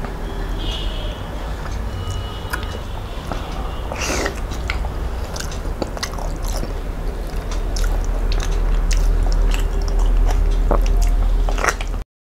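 Close-miked chewing and mouth smacks of a man eating rice and curry, with wet squishes of fingers mixing food on the plate, over a steady low hum. The sound cuts out briefly near the end.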